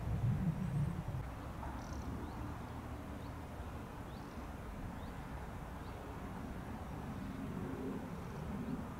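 Open-air background noise. A low rumble fills the first second, then a steady faint hiss. A few faint, short, high chirps come through about two to four seconds in.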